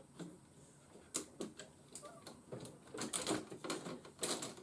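Sharp plastic clicks and taps of a transforming robot action figure's parts being handled and snapped into place, irregular and coming thicker in the last couple of seconds.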